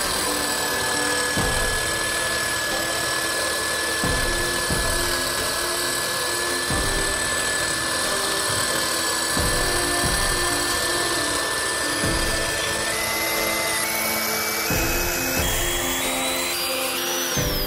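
Power drill with a large twist bit boring through the metal spring seat on a truck axle, enlarging the leaf spring's centre-bolt hole: a steady whine. Background music with a regular beat plays over it, and its tones climb in steps near the end.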